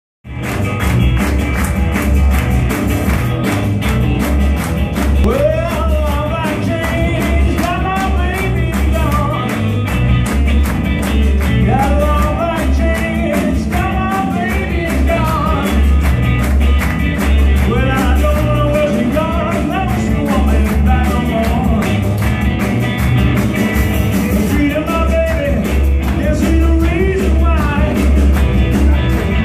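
Live blues-rock band playing: electric guitar, electric bass and drums with a steady beat. A vocalist starts singing about five seconds in.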